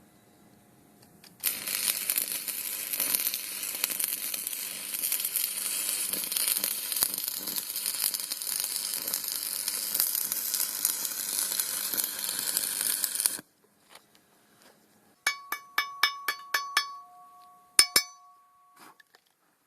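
Electric arc welding on steel: the arc strikes about a second and a half in, crackles and sizzles steadily for about twelve seconds, then cuts off suddenly. A couple of seconds later comes a quick run of sharp metallic taps that ring.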